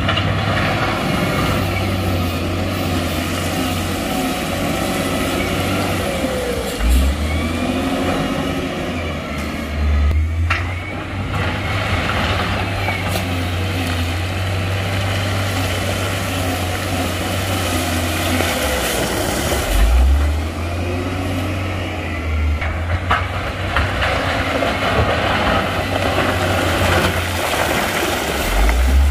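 Heavy construction vehicle's diesel engine running steadily with a low hum, with a couple of sharp knocks about a third of the way in and again later.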